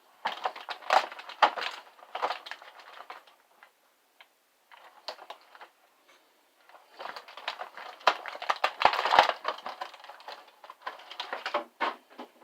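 Plastic packaging crinkling and crackling with small clicks as action-figure accessories are pulled out of it, in bursts with a couple of short pauses.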